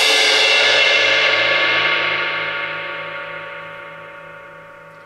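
Ultra-thin 18-inch crash/ride cymbal ringing out right after a stick hit on its crash area. A wash of many overtones fades slowly and steadily, losing its high end first.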